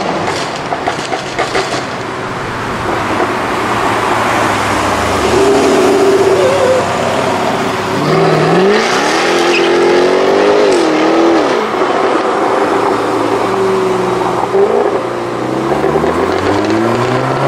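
A high-performance car engine revving. Its pitch climbs and falls several times, with the biggest rev about eight to twelve seconds in and another climb near the end.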